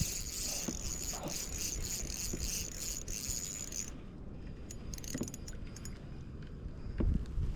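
Wind buffeting the microphone with a low rumble, under a steady high insect buzz that cuts off abruptly about four seconds in. Light clicks and rattles follow as the fishing gear is handled.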